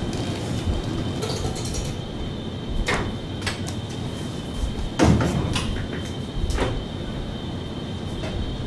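Scattered knocks and clunks of radiography equipment being handled and moved about, the loudest about five seconds in, over a faint steady high-pitched electrical whine.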